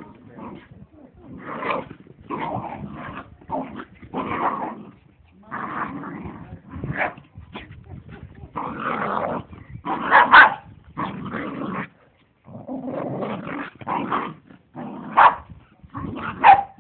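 Two dogs play-fighting: rough growling in irregular bursts, with an occasional sharper bark or yip.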